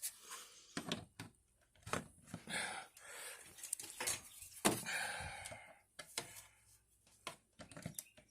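Hand handling noises while a Kill A Watt power meter is plugged in: scattered sharp plastic clicks and knocks, with two short stretches of scraping and rubbing about two and a half and five seconds in.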